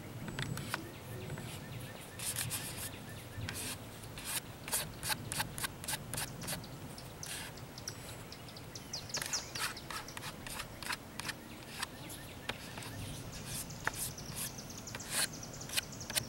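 Light rain tapering off after a thunderstorm: scattered raindrops tapping close by as irregular sharp ticks, several a second, over a low steady outdoor rumble.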